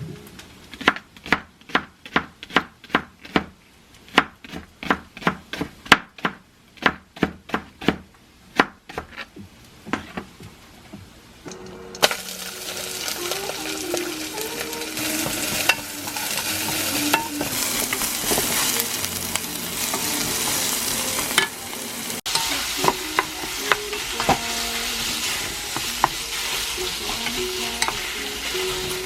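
A run of quick, even knocks, about three a second, for roughly ten seconds; then food sizzling in a hot pan, a steady loud hiss with small crackles, from about twelve seconds in.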